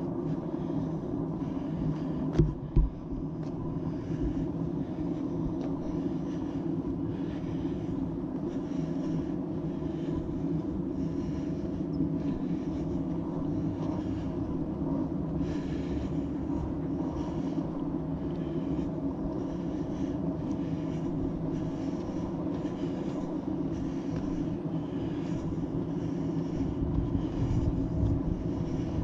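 Footsteps on a dirt trail at a steady walking pace, about one step a second, over a steady low mechanical hum. Two sharp knocks come about two seconds in.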